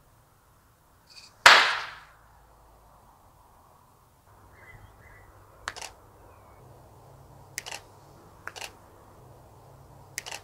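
Finger snaps firing a sound-activated camera trigger, each snap followed at once by the click of the DSLR's shutter. One loud, sharp snap comes about a second and a half in, and after a pause come quick pairs of clicks every second or two.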